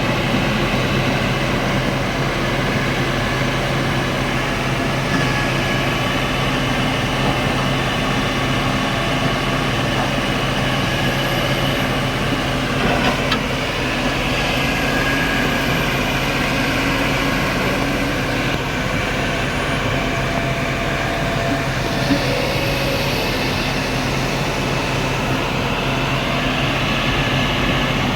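Hydraulic excavator's diesel engine running steadily under work, with a couple of brief knocks about halfway and again later.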